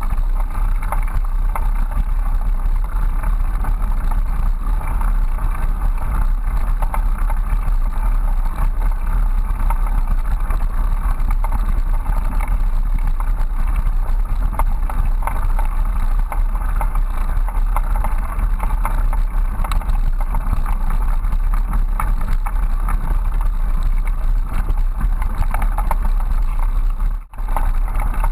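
Bicycle riding over a dirt trail heard from a handlebar-mounted GoPro in its housing: a steady low rumble of tyre and handlebar vibration with wind noise on the microphone. The sound drops out for a moment near the end.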